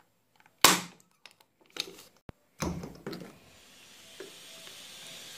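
A paintless dent repair glue pull tab being worked on a car body panel: one sharp snap about half a second in, then a few softer clicks and knocks. A faint hiss slowly builds toward the end.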